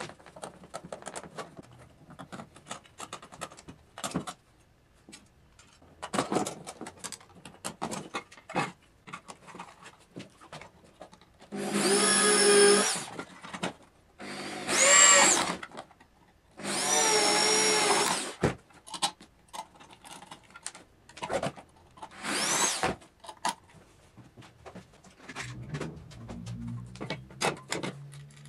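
Electric hand drill boring through the white plastic desoldering-gun holder in four short bursts, the motor whine rising as each burst starts and falling as it stops. Between the bursts there are light clicks and taps of hand tools and parts being handled.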